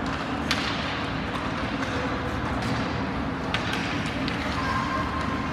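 Steady arena noise at an ice hockey game, with faint background chatter and two sharp clacks, about half a second in and again about three seconds later.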